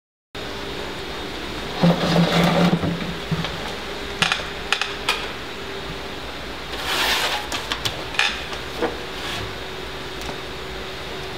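Small handling noises at a cluttered work desk: a scraping rub about two seconds in, then scattered light clicks and clinks as small objects are picked up and set down. A steady low hum runs underneath.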